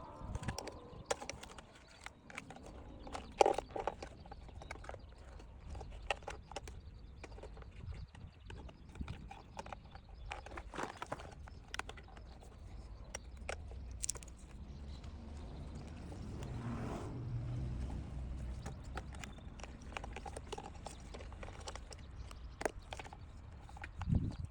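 Irregular clicks and knocks of hand work on car parts, plastic and metal pieces being handled and fitted during work on a blower motor and its wiring, with one louder knock about three and a half seconds in.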